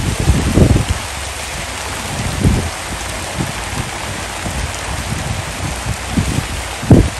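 Steady hiss of rain falling, with irregular low thumps, the loudest a little before the end.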